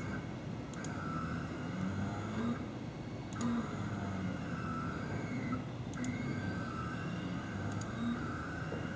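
Stepper motors of a large home-built delta 3D printer whining as the carriages move, the pitch of the tones stepping up and down with each move. A few light clicks.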